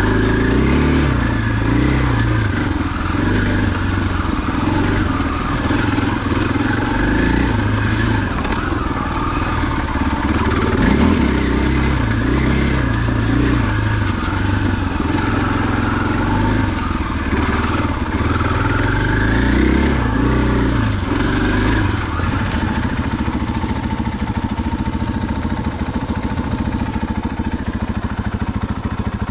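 KTM 500 EXC-F's single-cylinder four-stroke engine running as the dirt bike is ridden along single track, its revs rising and falling with the throttle. For the last several seconds it settles into a steadier, even beat.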